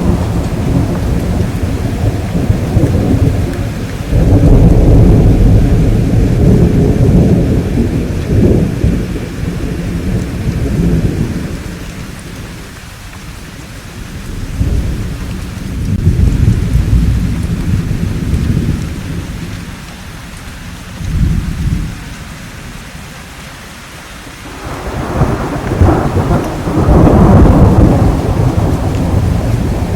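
Thunderstorm: steady rain with rolling thunder that swells and fades in several long rumbles, the loudest starting about four seconds in and another near the end.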